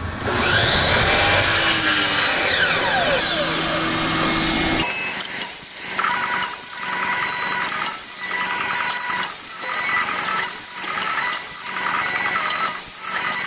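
Miter saw motor spinning up, its blade cutting through a wooden strip, then the blade winding down with a falling whine. About five seconds in the sound switches abruptly to background music with a steady beat.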